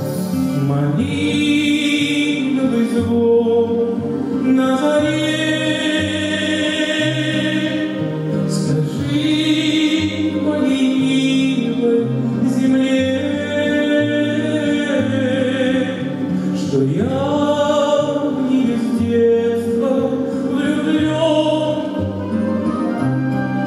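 A male tenor singing a slow, lyrical Russian song into a microphone, with grand piano accompaniment sounding sustained low notes under the voice. About two-thirds of the way through, the voice swoops upward into a held note.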